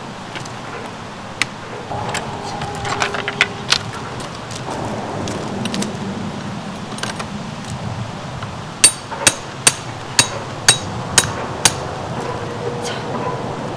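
A hammer striking a ground stake seven times, about two blows a second, driving in the anchor for a large parasol pole. A few lighter clicks and knocks come earlier.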